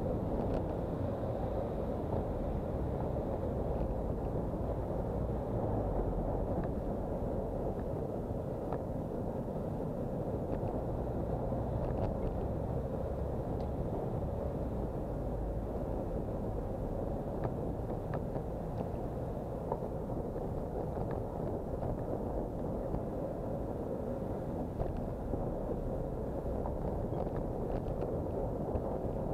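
Steady, muffled rumble of wind and road noise picked up by a bicycle-mounted camera riding through city traffic, with a few faint clicks scattered through it.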